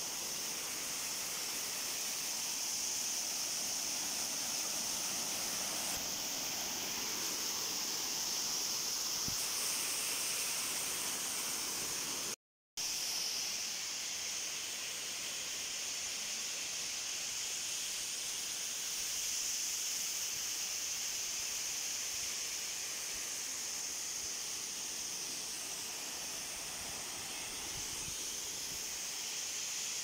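Waterfall running over rock: a steady rushing hiss of falling water that cuts out for a moment about twelve seconds in.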